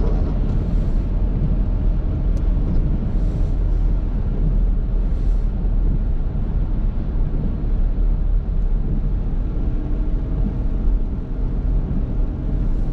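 Car cabin noise while driving on a wet road: a steady low rumble of engine and tyres, with a few faint swishes of the windscreen wipers in the first half. A steadier engine hum comes in about nine seconds in.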